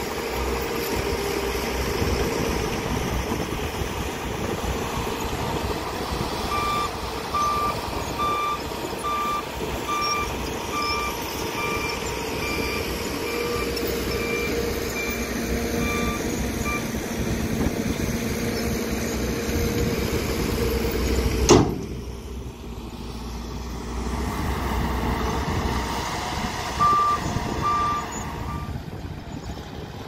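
Dump truck's diesel engine running steadily as it tips a load of dirt, with a truck's reversing alarm beeping a little over once a second through the middle stretch. A sharp click about two-thirds of the way in, then more engine noise and three more reversing beeps near the end.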